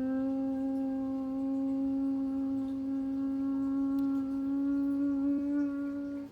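A person humming one long, steady note in imitation of a jet airliner's engines as a toy plane lands, the pitch creeping slightly upward before it cuts off suddenly near the end.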